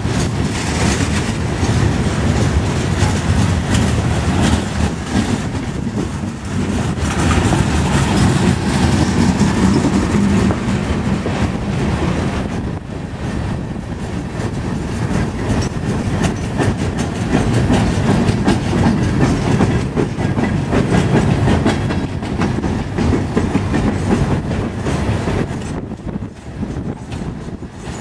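Freight cars of a CSX train rolling past: a steady rumble of steel wheels on the rails, with clickety-clack as the wheels cross rail joints.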